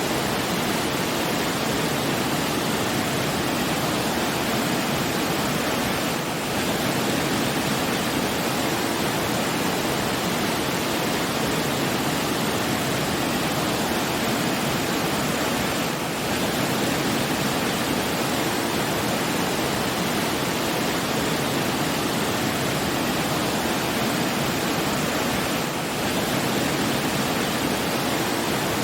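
Steady rushing noise of falling water, like a waterfall, even and unbroken, with a slight dip in level about every ten seconds.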